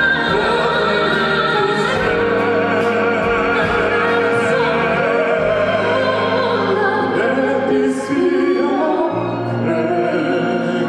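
Operatic singing with vibrato over an orchestral accompaniment, part of a classical-crossover duet; the music plays steadily without a break.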